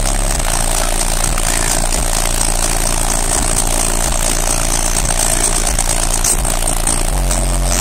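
Six 15-inch SSA Evil car-audio subwoofers playing a bass track at extreme volume inside the truck cab, so loud that the recording is a constant distorted rumble. The bass notes change about seven seconds in.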